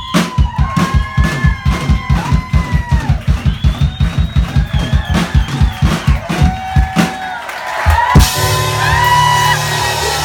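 Live band music: a drum kit keeps a fast, even beat under piano and a melody line that bends in pitch. About eight seconds in, a loud final hit leads into a held chord with ringing cymbals.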